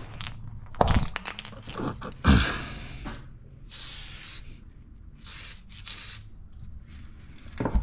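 Aerosol spray-paint can hissing in four short bursts, after a couple of knocks in the first two seconds.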